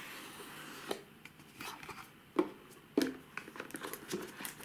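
Cardboard smartphone box being unsealed and opened by hand: a soft rustle for about the first second, then a few light clicks and knocks of the cardboard lid and box, the sharpest about two and a half and three seconds in.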